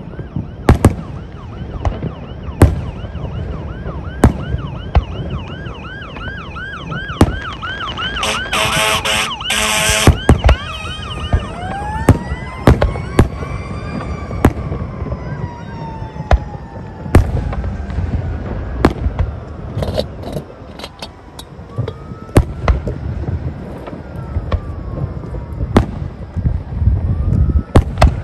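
Fireworks going off with repeated sharp bangs throughout. Over them a siren sounds: a fast warble for the first third, a brief loud pulsing blast about nine seconds in, then slow rising and falling wails.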